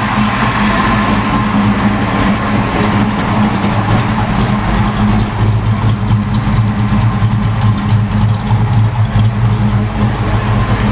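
Fox Body Mustang engine idling steadily through a freshly fitted H-pipe exhaust. The passenger-side header no longer leaks, so there is no ticking from it.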